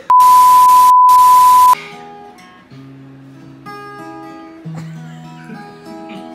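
A loud, steady electronic beep over a hiss of static, lasting about a second and a half with a brief break in the middle. Then an acoustic guitar is picked note by note through slow chords.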